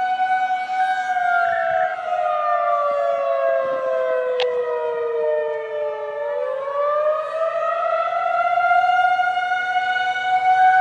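Federal Signal 2001-SRN outdoor warning siren sounding the attack signal: its tone holds, falls slowly for about five seconds, then rises back up in one wail, with echoes trailing behind it. Short bursts of FSK polling data tones chirp near the start and again near the end.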